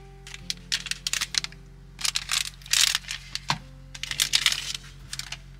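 Paper drip-coffee bag being torn open and unfolded by hand, crinkling in short rustling bursts, over background music with sustained notes.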